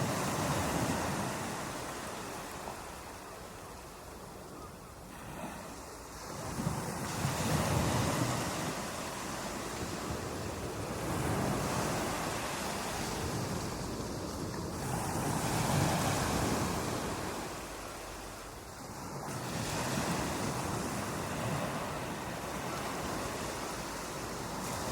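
Ocean surf breaking on a beach, the rush of water swelling and ebbing as one wave after another comes in, roughly every four seconds, with wind noise underneath.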